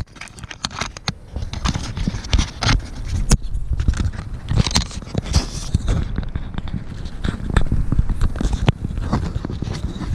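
Handling noise from a GoPro held in a hand: fingers rubbing, scraping and tapping on the camera right at its microphone, giving irregular clicks and rustles over a muffled rumble, with a sharper knock about three seconds in.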